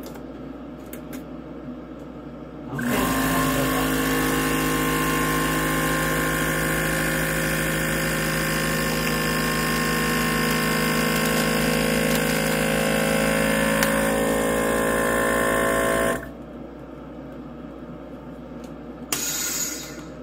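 Electric vacuum sealer's pump drawing the air out of a plastic bag. It starts suddenly about three seconds in, runs steadily for about thirteen seconds, then cuts off suddenly.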